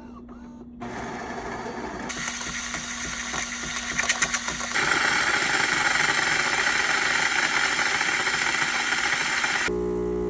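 Philips Series 3300 bean-to-cup coffee machine running a latte cycle at its strongest settings. Its internal motors start up with a rattle and grow into a loud steady whirring from about five seconds in, which gives way near the end to a lower, steady humming.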